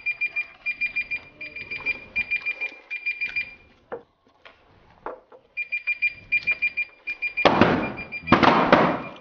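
Rapid electronic beeping: a short, high beep repeated several times a second, breaking off for about two seconds in the middle. A few light clicks of tableware fill the pause. Near the end come two loud bursts of noise, each under a second long.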